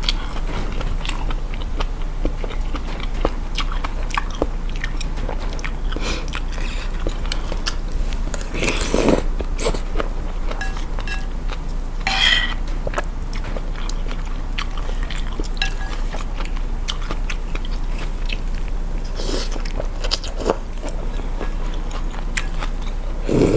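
Close-miked chewing and eating of a bowl of rice noodle soup with stewed beef: many small wet clicks, with a few louder brief noises scattered through.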